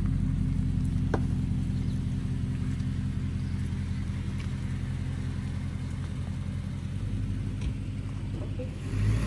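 Toyota Tundra pickup's engine idling steadily, a low even rumble.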